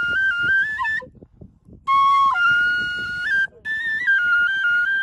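A side-blown flute playing a simple melody of held and stepping notes in short phrases, with a pause for breath about a second in and a brief one about three and a half seconds in.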